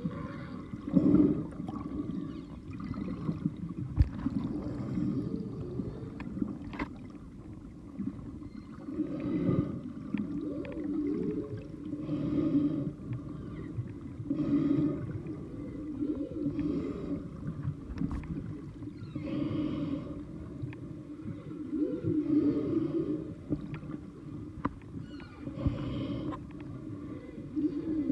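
Humpback whales vocalizing underwater: a long series of low moans and whoops that bend up and down in pitch, coming every second or two.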